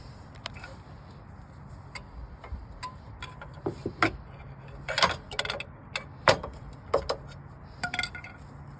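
Steel-backed brake pads being worked loose from a truck's caliper bracket: a run of sharp metallic clicks and clanks, a few with a short ring, coming thicker and louder in the second half.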